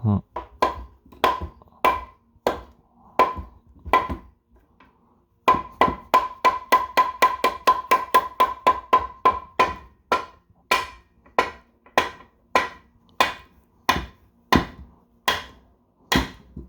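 Hammer blows driving a steel part into a 1960 Ford three-speed transmission, each strike ringing metallically. Single blows come at a steady pace, then a quick run of lighter taps, about four or five a second, from about five seconds in to nearly ten, then single blows again.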